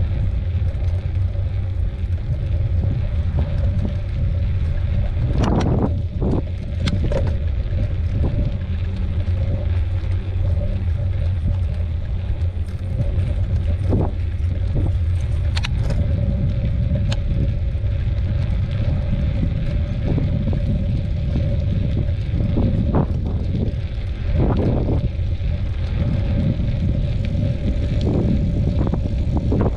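Steady low rumble of a bicycle being ridden along a trail, tyres rolling with wind on the microphone, over a faint steady hum, with scattered clicks and rattles from the bike.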